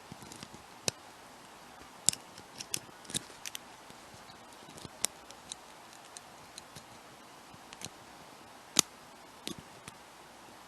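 Irregular small metallic clicks and taps of lock picks and a tension wrench working in a brass padlock, with two louder clicks about two seconds in and near the end.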